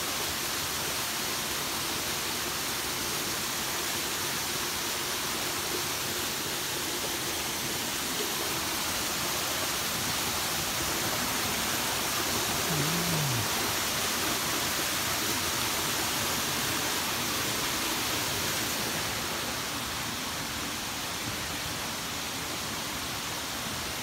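Small waterfall and rocky stream rushing over boulders: a steady hiss of falling water, easing slightly near the end.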